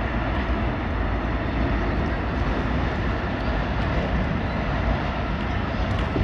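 Subway train rumbling steadily as it crosses the lower deck of a double-deck steel bridge over the river.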